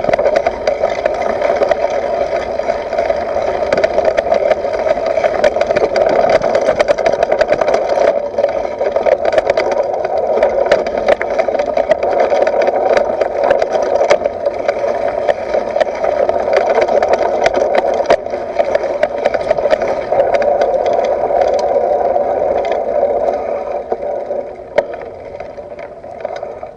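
A mountain bike ridden slowly over stony ground, heard through a camera mounted on the bike: tyres crunching over gravel and stones with a constant rattle of many small knocks as the front end takes the bumps. The noise dies down over the last couple of seconds.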